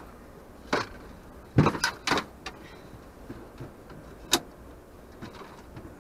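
Scattered sharp knocks and clunks of fishing tackle handled on a boat: a quick cluster of them about a second and a half in, and one more single knock a little past four seconds.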